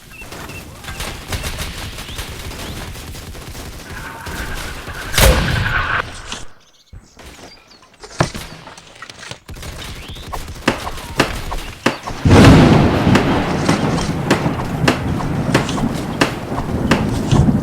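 Gunfire sound effects: scattered shots and bursts, a loud blast about five seconds in, then a short lull. About twelve seconds in a heavy boom breaks out, followed by rapid firing.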